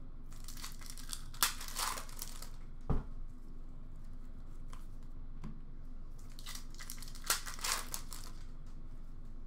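Hockey card pack wrapper being torn open and crinkled in short rustling bursts, with cards handled, and a single soft knock about three seconds in.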